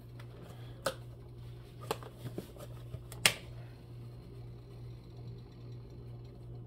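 A few sharp plastic clicks and taps from handling a container of ground black pepper over the soup pot, the loudest about three seconds in, over a steady low hum.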